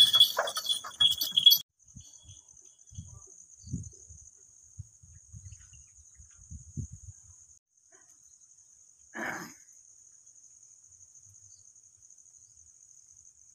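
Goats' hooves clattering on a wooden plank ramp for about the first second and a half, stopping abruptly. After that a steady high insect trill carries on, with one short louder sound about nine seconds in.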